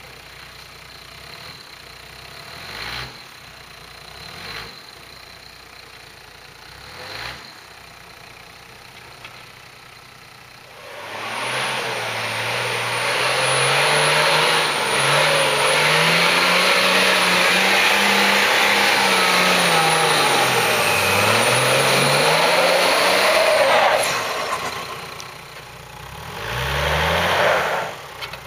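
4x4 off-road vehicle engine ticking over with a few short throttle blips, then about 11 seconds in revving hard and steadily for some thirteen seconds as the vehicle is driven through deep snow, the pitch climbing, dipping briefly and climbing again with a thin high whistle on top, before cutting off; another short rev comes near the end.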